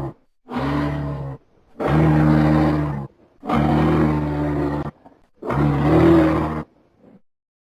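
Designed dinosaur calls for a Parasaurolophus–Stygimoloch hybrid: four low, resonant calls, each a little over a second long, with short silent gaps between them.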